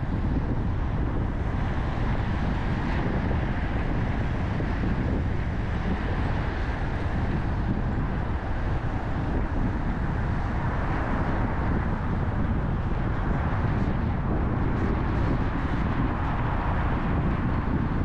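Steady noise of a car driving on city roads: a constant low rumble of tyres and engine with a hiss of road noise.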